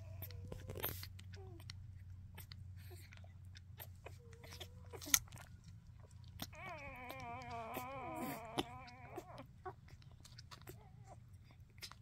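Newborn puppy suckling at a formula bottle: faint wet sucking clicks, with brief squeaks near the start and a wavering whining cry of about three seconds past the middle. A low steady hum underneath.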